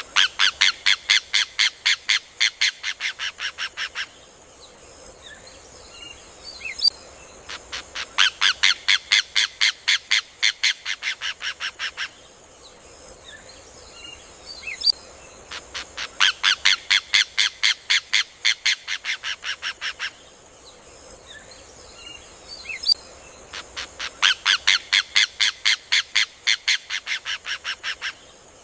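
Rufous hornero (João-de-barro) song: a rapid run of sharp ringing notes, about six a second for about four seconds, loudest at the start and tapering off, repeated four times at even intervals about eight seconds apart. Faint scattered chirps and a steady hiss fill the gaps between bouts.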